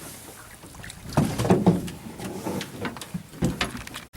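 Irregular knocks and thumps of handling on a fishing boat, loudest in a cluster about a second and a half in.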